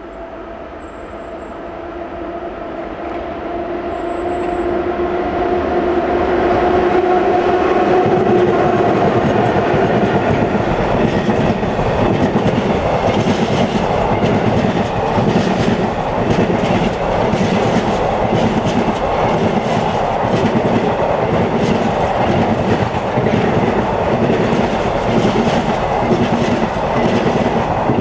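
A pair of Class 90 electric locomotives hauling a long container freight train approaches with a steady two-note hum, rising slightly in pitch and growing louder over the first several seconds. The container wagons then rumble past loudly, with repeated clicks and clatter from the wheels over rail joints.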